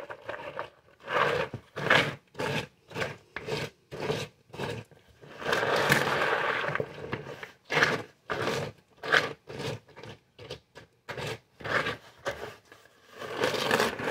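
Wooden spoon scraping and stirring chocolate-coated Chex cereal around a large plastic mixing bowl, in a run of irregular strokes about one or two a second, with one longer scrape around the middle.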